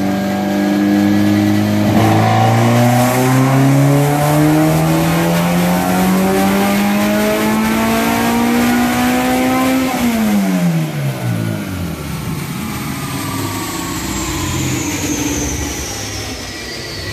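Honda K20A3 four-cylinder engine doing a full-throttle pull on a chassis dyno. Its note holds steady for a couple of seconds, then climbs smoothly for about eight seconds. At about ten seconds the throttle shuts and the revs fall quickly, followed by a high whine falling in pitch as it coasts down.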